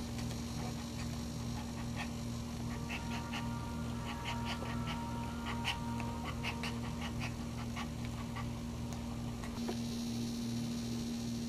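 Dog in labour panting rhythmically during whelping, over a steady low hum.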